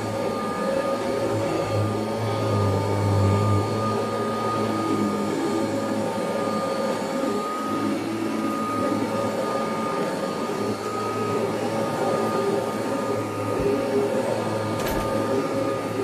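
Kirby Heritage II Legend upright vacuum cleaner running steadily as it is pushed over a rug: a continuous motor hum with a steady whine over the rush of suction. A brief click sounds near the end.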